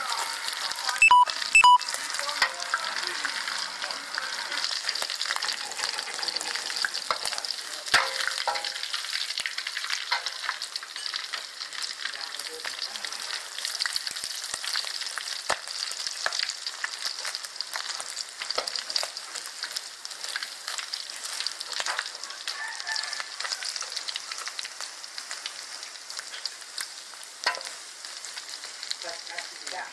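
Bats frying in hot oil: a steady sizzle with crackling and popping throughout. Two loud sharp clicks come about a second in, and a few more single clicks later.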